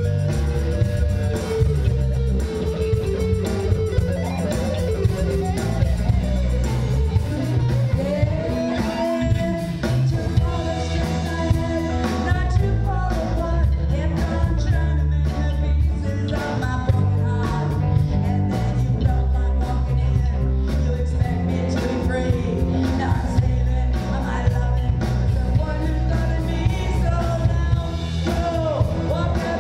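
Live rock band playing: electric guitar, bass guitar and drum kit keeping a steady beat, with a woman singing lead.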